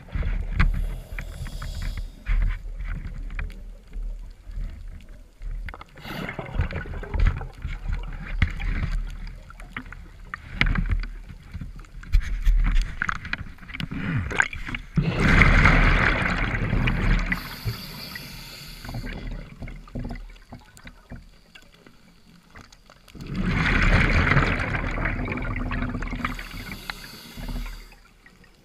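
Scuba regulator breathing heard underwater: two long rushes of exhaled bubbles about eight seconds apart, each followed by a short high hiss, with scattered knocks in between.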